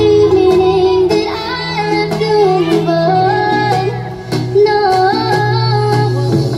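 Loud recorded music played through a large mobile sound system during a sound check: a high sung melody that slides between notes, over held bass notes and a steady beat.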